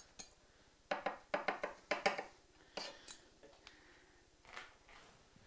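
Chef's knife chopping garlic on a wooden chopping board: a quick run of strokes between about one and two seconds in, then a single sharp knock a little later.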